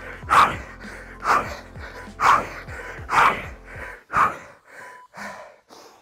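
A man breathing hard after a treadmill sprint: heavy gasping breaths about once a second, weaker after about four seconds in, over background music.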